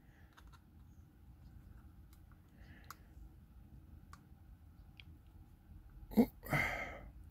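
Faint, scattered small clicks of an SD card and a plastic dash cam mirror unit being handled and fitted, with a short muffled grunt near the end.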